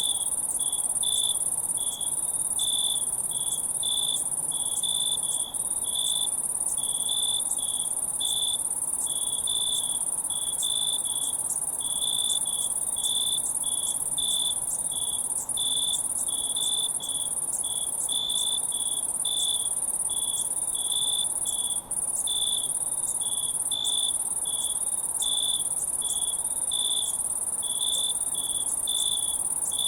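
Chorus of crickets chirping: a steady high-pitched trill with a lower chirp repeating about twice a second.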